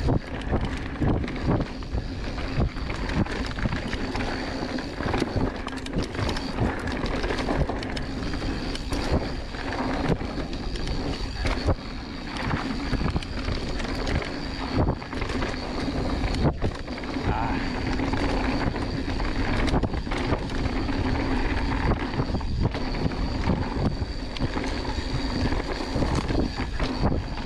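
Mountain bike descending a dirt singletrack: tyres rolling over the dirt and the bike rattling and knocking over bumps, with wind noise on the microphone.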